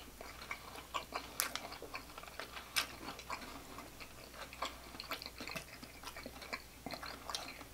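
Close-miked chewing of grilled sausage: soft, irregular wet clicks and smacks from the mouth, over a faint steady low hum.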